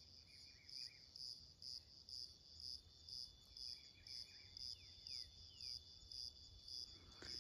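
Faint rural insect chorus: an insect chirping in an even rhythm, about two pulses a second, over a thin steady high whine. Faint bird chirps come through, with a few short falling whistles near the middle.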